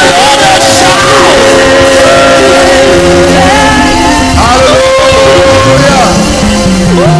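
Live church praise music played loudly: long held notes and a bass line, with voices singing over them.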